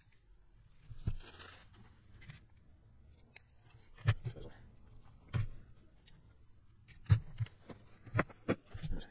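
Double-sided tape peeled off its roll with a short rasp about a second in, then scattered clicks and knocks as scissors and small RC parts are handled and set down on a cutting mat.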